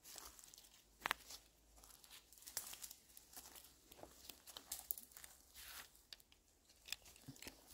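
Faint, irregular footsteps crunching and rustling through forest-floor litter, with scattered sharp clicks.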